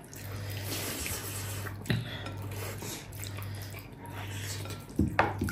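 Gundruk (fermented greens) soup being poured and ladled onto a plate, with a few clinks of metal dishes and spoon, one about two seconds in and more near the end.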